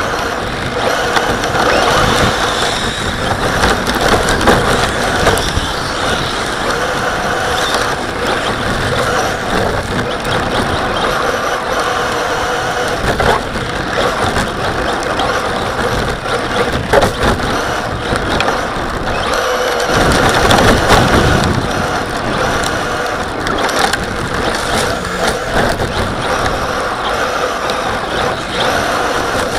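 Onboard sound of a radio-controlled car driving over icy, snow-covered pavement: continuous drivetrain and chassis noise with the tyres running over snow and ice, and a few sharp knocks from bumps.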